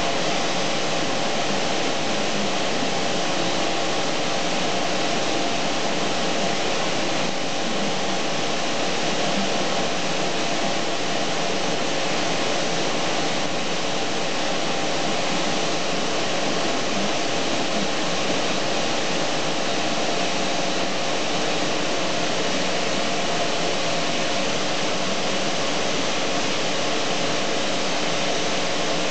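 Steady rushing noise of a running fan-type motor, with a constant hum in it and no change in level.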